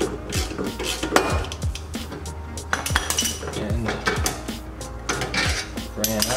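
Steel clinking and clattering as a three-jaw gear puller and its ratchet are handled and taken off a wheel hub. Background electronic music with a deep, falling bass beat plays underneath.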